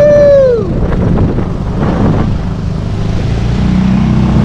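Small outboard motor running steadily as an inflatable dinghy pushes through rushing rapids, with water churning against the hull; a single rising-and-falling whoop from a person's voice in the first second. The motor note steadies and strengthens near the end.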